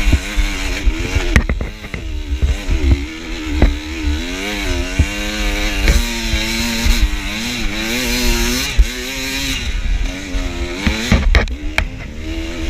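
Two-stroke enduro dirt bike engine running hard, its pitch rising and falling again and again as the throttle is worked, with sharp knocks and clatter from the bike over rough trail.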